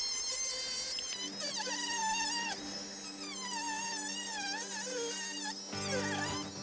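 Background music: a buzzy, wavering lead melody over low held notes that come in about a second in.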